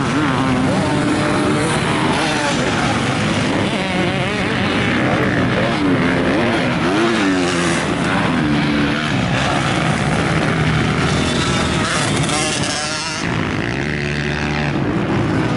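Several motocross dirt bikes running on a dirt track, their engines revving up and down over and over as the riders accelerate, shift and back off for jumps and corners.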